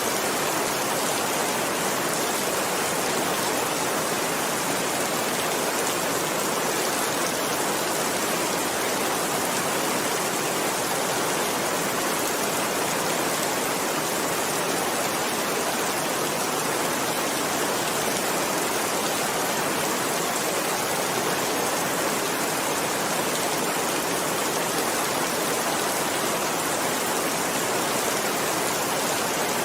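Steady rain falling without a break, an even hiss.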